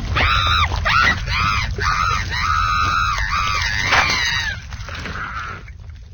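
High-pitched cartoon character's voice screaming in a run of short arching cries, dying away after about four and a half seconds, over a low rumble.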